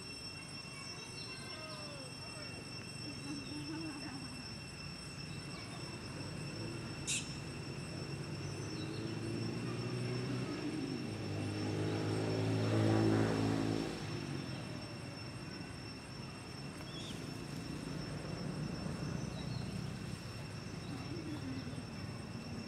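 Outdoor ambience in which a passing engine swells to its loudest about thirteen seconds in and then fades. Under it runs a steady high-pitched insect drone, and a single sharp click comes about seven seconds in.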